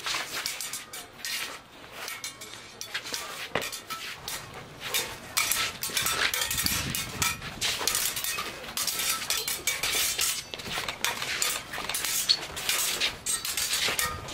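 Steel cup-hilt rapier blades clashing and scraping in fencing practice: many quick, sharp metallic clinks, coming thick and fast in the second half.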